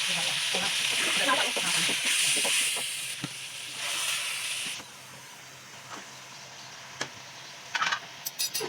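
Food sizzling in a hot pan while a spoon stirs and clicks against it. The sizzle cuts off suddenly about five seconds in, leaving only scattered utensil clicks and taps.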